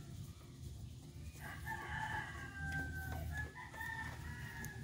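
A rooster crowing: one long, drawn-out crow starting about a second and a half in.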